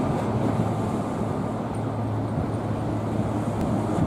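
A boat's engine droning steadily at a constant low pitch, with wind buffeting the microphone.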